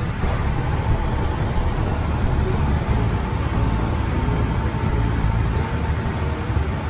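Steady cockpit noise of an airliner at cruise altitude: a constant rush of airflow and engine noise, strongest in the low range, with a faint steady tone running through it.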